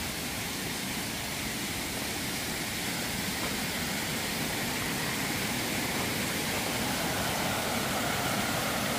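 Small mountain waterfall and stream rushing over rocks: a steady, even rush that grows slightly louder as it comes nearer.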